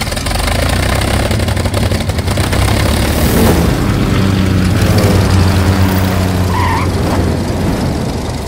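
Small single-engine propeller plane flying past, its engine droning loudly and steadily.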